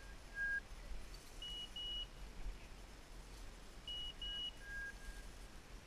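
Short electronic beeps, each a steady pure tone: a lower single beep near the start, then two pairs of quick higher beeps, about 1.5 s and 4 s in, with a few more lower beeps around the fourth and fifth second. A steady low rumble sits underneath.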